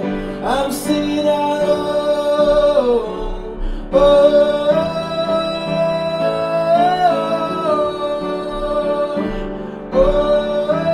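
Male voice singing long held notes over upright piano chords: three sustained sung phrases, the middle one with a brief lift in pitch about halfway through.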